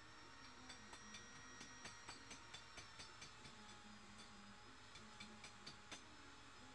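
Faint, rapid metal ticks, about four a second for several seconds, from hand work on a fishing boat's chain and wire-rope fittings.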